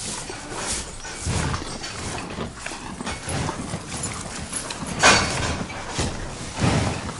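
A cow blowing air through its nostrils in a series of noisy breaths. The loudest and sharpest blow comes about five seconds in.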